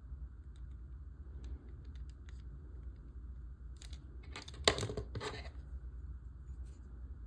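Hands handling small model-kit parts and paper: scattered light clicks and taps, with a louder crinkling rustle about four and a half seconds in that holds a sharp tap.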